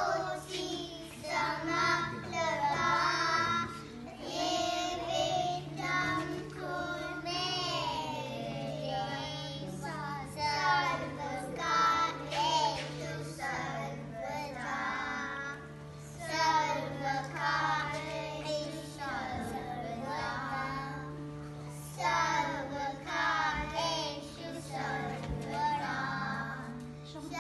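Group of young children singing a song together into a microphone, in phrases with short breaks, over a steady held note that sounds underneath throughout.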